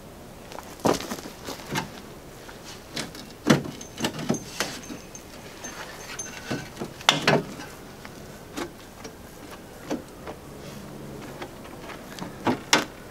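Scattered metallic clinks and knocks of hand tools being handled and fitted to the bolts on a Land Rover's bulkhead outrigger, with a few sharper strikes among them.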